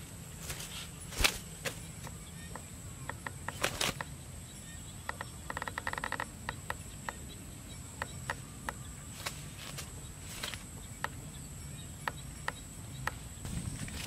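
Rural outdoor ambience: a steady high-pitched insect drone with scattered light clicks and ticks, and a short buzzing trill about halfway through.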